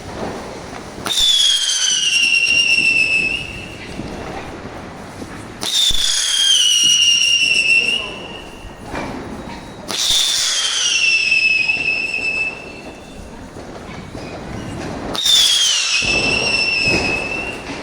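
'Singing bird' firecrackers whistling: four separate high whistles, each starting suddenly and sliding down in pitch over about two seconds, over a hissing rush.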